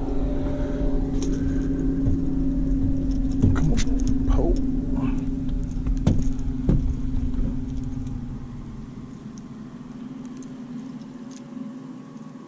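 Steady low hum of a motor, with a deep rumble under it that falls away about eight seconds in. A few sharp knocks and clicks come from handling a fish and gear aboard a fiberglass boat.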